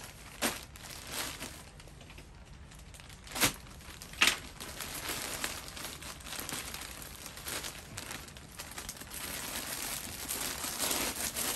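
Plastic courier mailer bag crinkling and rustling as it is handled and pulled open. There are a few sharp snaps in the first half, then steadier rustling that grows louder toward the end.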